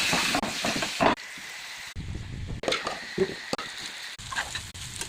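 Rice frying in a hot pan while being stirred, with a loud sizzle for about the first second. After that the frying is quieter, with repeated clicks and scrapes of a utensil against the pan.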